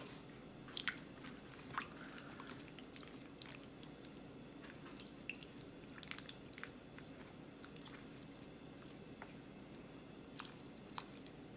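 Wooden spoon stirring chopped shrimp and vegetables in citrus broth in a plastic container: faint wet squishing with scattered small clicks, over a low steady hum.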